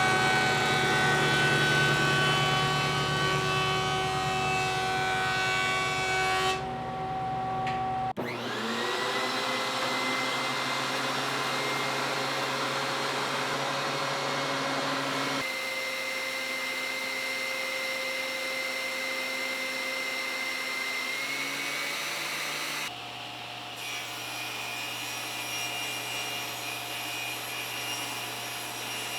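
Woodworking power tools running while scrap boards are milled to dimensional lumber: a steady machine whine in several short cuts, with a motor spinning up just after eight seconds in.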